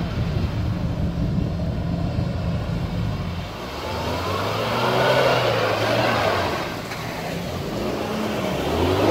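Lifted UAZ Patriot 4x4's engine running and revving as it wades through a muddy river crossing, the engine note swelling and then falling away between about four and seven seconds, with water splashing. Near the end a second off-road SUV's engine revs as it drives into the water.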